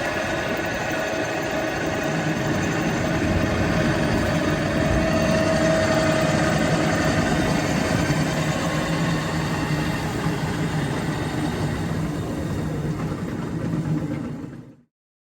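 Steady engine drone with a low hum, cutting off suddenly near the end.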